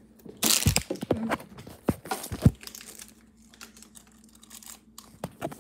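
A plastic snack wrapper crinkling and tearing as it is pulled open, partly with the teeth. The loudest rustle is about half a second in, followed by a few sharp crackles.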